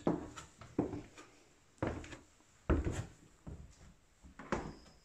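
Footsteps on bare wooden floorboards, a knock about once a second at walking pace.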